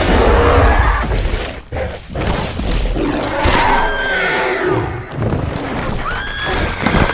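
Film action sound effects of giant creatures falling: heavy low crashing and rumbling at the start, then two high, arching shrieks, one about four seconds in and another near the end.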